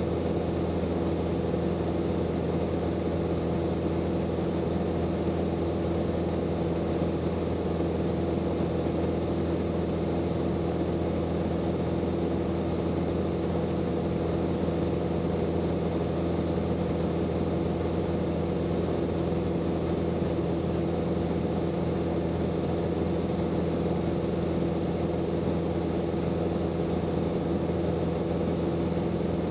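Grumman AA-5B Tiger's four-cylinder Lycoming O-360 engine and propeller droning steadily in level cruise flight, a constant low hum with several steady tones.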